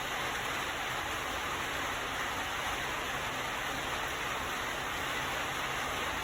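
Steady, even hiss, level throughout, with no distinct clicks or knocks.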